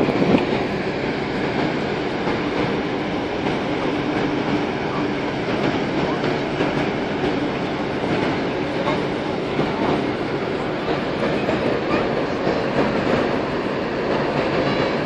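Steady rumbling, rushing noise on a ship's open deck: the vessel's engine drone mixed with wind.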